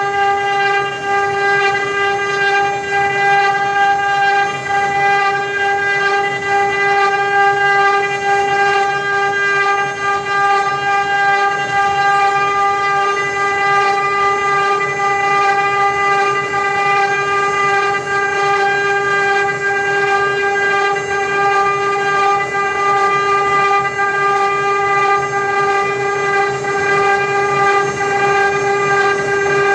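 Multi-spindle CNC wood router running, its spindles giving a steady high-pitched whine over the rough noise of the cutters carving relief patterns into wooden panels.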